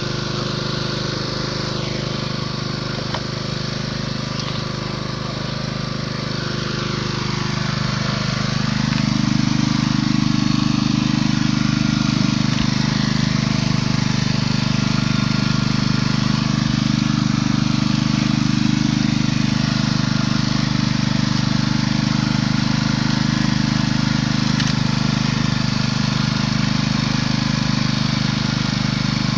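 A small engine running steadily with a constant drone. About eight seconds in it gets louder and fuller, then holds steady at that higher level.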